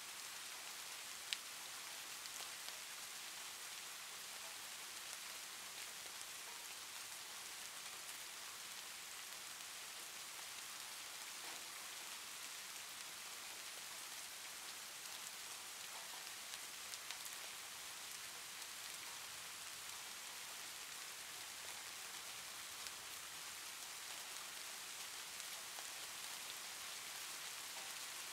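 Faint, steady, rain-like hiss with a few soft clicks, the clearest about a second in.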